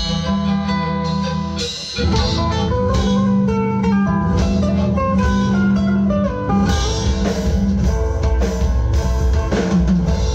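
A band playing: acoustic guitars strummed and picked over a drum kit and a bass line, heard through the PA during a soundcheck. The playing gets louder and fuller about two seconds in.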